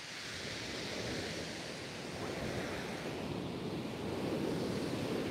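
Sea surf breaking and washing up a shingle beach: a steady rush of waves that slowly grows louder.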